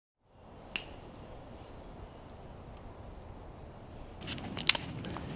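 Wood campfire burning with a steady low rush and occasional crackles: one pop under a second in, then a cluster of loud, sharp cracks and snaps near the end as a stick is worked into the flames.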